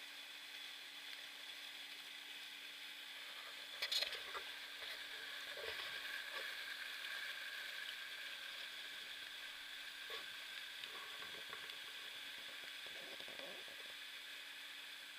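Waterfall: a steady hiss of falling water, with a sharp click about four seconds in.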